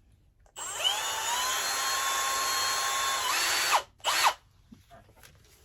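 Power drill with a small 2.5 mm bit drilling a pilot hole for a screw in a wooden picture frame. The motor spins up with a rising whine about half a second in, runs steadily for about three seconds, stops, then gives one brief second burst.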